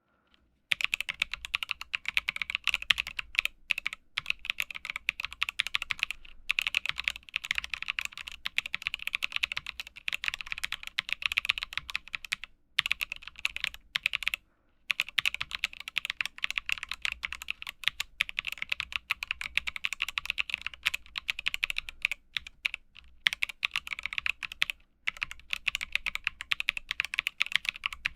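Typing on a MonsGeek M1 mechanical keyboard with WS Heavy Tactile switches: rapid, continuous keystrokes that start about a second in, broken by a few brief pauses.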